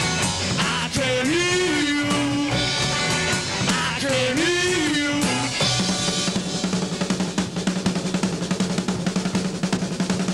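Punk rock band playing without vocals. For the first few seconds a sliding riff repeats about every second and a half over bass and drums; from about six seconds in the drummer plays a fast, continuous roll over a held low bass note.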